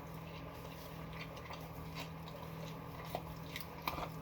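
Quiet chewing of a Subway sandwich with a few faint mouth clicks, over a steady low hum.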